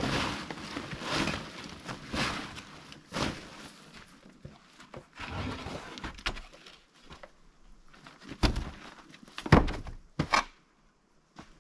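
Scraping, rustling and knocking of things being moved by hand, with three sharp thumps about eight to ten seconds in.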